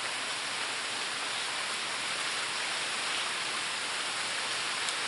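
Steady rain falling: an even hiss with no separate sounds standing out.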